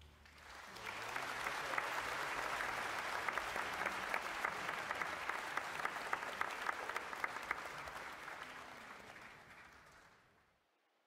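Applause from a crowd: a dense patter of many hand claps that swells in quickly and fades away near the end.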